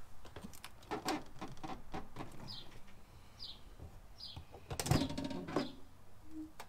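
Light knocks and handling clicks, then a louder clack about five seconds in as the built-in microwave's door latch releases and the door swings open. A bird outside chirps three short falling notes.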